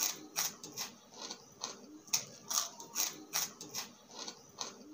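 Close-up chewing of crispy egg chicharon chips: a run of sharp crunches, about two or three a second.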